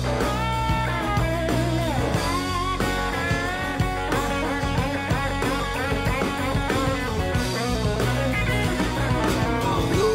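Rock song with no singing: an instrumental guitar passage whose lead line bends up and down in pitch over a steady bass and drum backing.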